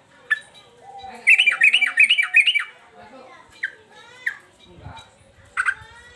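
Male yellow-vented bulbul (trucukan) singing excitedly. A sharp call comes first, then a rapid run of about seven loud bubbling notes, then a few short scattered calls.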